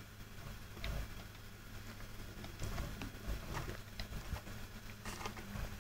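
Fingers tapping and handling a smartphone: scattered light taps and clicks, a few each second, over a steady low hum.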